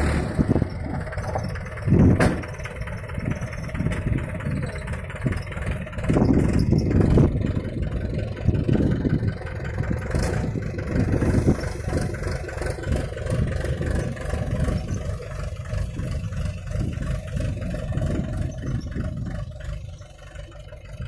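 Mahindra 475 DI tractor's diesel engine running, its loudness rising and falling unevenly and dropping off near the end.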